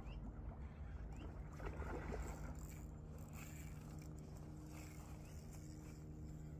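Faint steady hum of a distant motor, with scattered light clicks and a few brief rising chirps.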